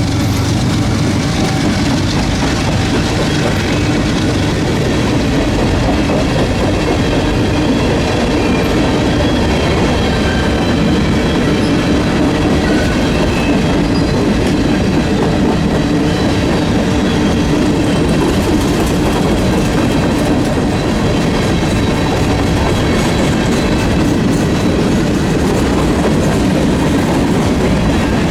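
A Union Pacific freight train rolling past at trackside, with a steady, continuous noise of steel wheels running on the rails.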